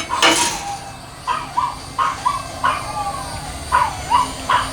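A dog barking repeatedly in short, sharp yaps, mostly in quick pairs, after a loud sharp sound at the very start.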